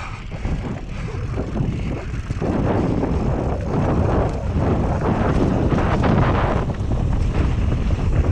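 Wind buffeting an action camera's microphone over the rumble and rattle of mountain bike tyres rolling down a dirt and gravel singletrack, growing louder about two and a half seconds in.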